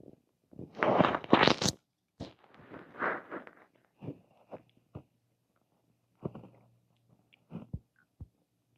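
Human stomach gurgling heard close up, in scattered short gurgles with a few small squeaky pops, and a loud crackling noise about a second in.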